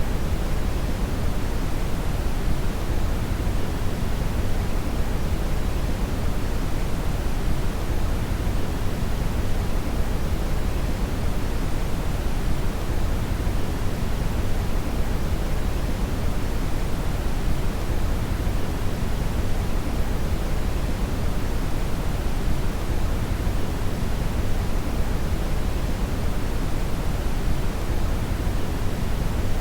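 Steady brown (red) noise: a deep, even rushing hiss, strongest in the bass and falling away toward the treble, with no changes.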